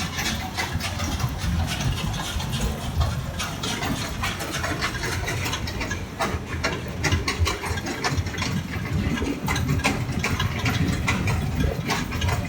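Sugar beet piler's conveyor belts running under a load of beets: a steady low machinery rumble with dense clatter and knocking as the beets tumble and rattle up the belts.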